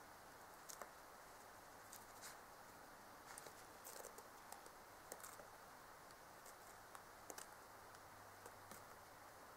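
Faint, scattered rustles and light clicks of a red fox rummaging in rubbish in snow, over a steady low hum.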